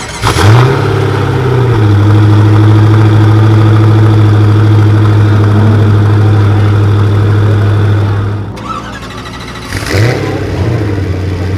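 A supercar engine starts with a short blip of revs and settles into a steady idle. About eight seconds in the sound breaks off, and another start-up with a brief rise in revs follows, settling back to idle.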